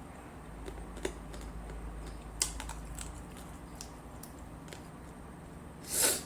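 Quiet eating sounds: scattered small clicks and smacks of chewing and handling food, with a short breathy puff about six seconds in.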